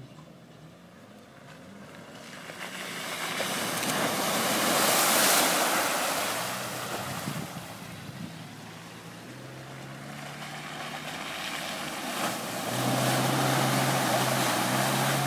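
Off-road 4x4 driving through mud and muddy water: a rush of splashing and tyre noise swells to a peak about five seconds in and fades, then the engine runs steadily under load through the last few seconds, loudest near the end.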